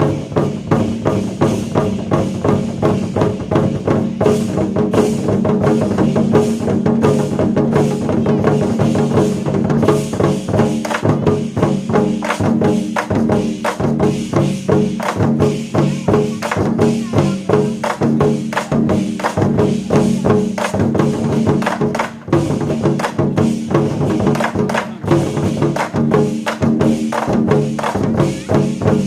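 Chinese war drums (zhan gu) played by an ensemble: dense, rapid strikes with sharp stick clicks, over sustained musical accompaniment.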